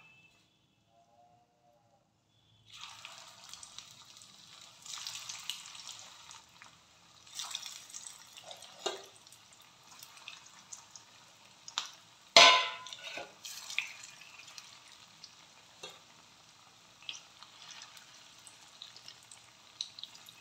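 Battered cauliflower pakoras deep-frying in hot oil in an iron kadhai: a steady sizzle with crackles that starts about three seconds in. A few sharp knocks come through it, the loudest about twelve seconds in.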